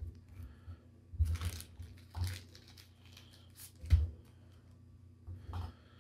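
Thin plastic penny sleeve crinkling as a trading card is slid into it and handled, in four short rustles, the loudest about four seconds in.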